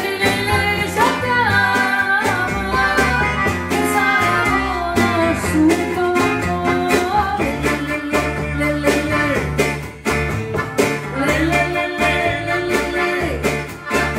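A live acoustic band playing a song: a woman singing a wavering melody over strummed acoustic guitar, plucked upright double bass and drums.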